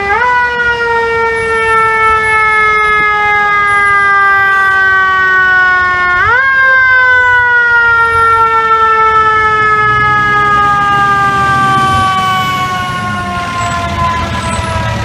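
FDNY Tower Ladder 35's mechanical siren wailing as the truck passes: it winds up quickly right at the start and again about six seconds in, and each time slowly falls in pitch. The truck's diesel engine rumbles louder as it drives by near the end.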